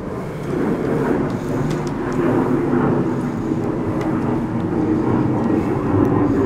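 A steady low rumble that builds over the first second and then holds, with a few faint clicks from 3D-printed plastic parts being handled.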